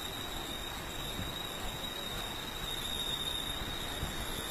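Steady hiss of heavy rain over a flooded street, with low rumbling and a thin, steady high-pitched whine.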